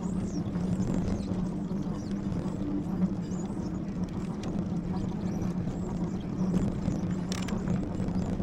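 Lectric XPeak fat-tyre e-bike riding on a trail: a steady low hum from its 750-watt hub motor over tyre and wind rumble. Faint bird chirps come through, and a single sharp click sounds about seven seconds in.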